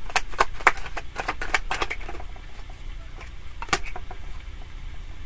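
A deck of tarot cards being shuffled by hand: quick card slaps about four or five a second for the first two seconds, then softer, sparser card sounds with one sharper snap later on.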